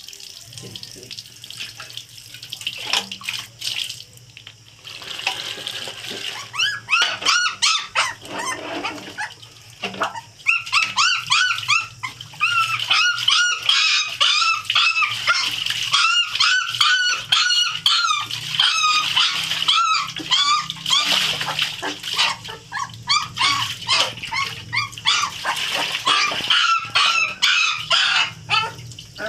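Young puppy whining and squealing, a long run of short high-pitched cries several times a second, starting about six seconds in and going on without a break, while it is being bathed.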